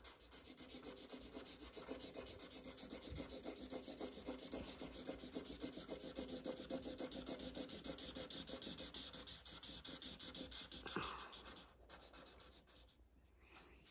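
Sharpie felt-tip marker scribbling rapidly back and forth on paper, colouring in, many quick even strokes a second; it goes quieter near the end.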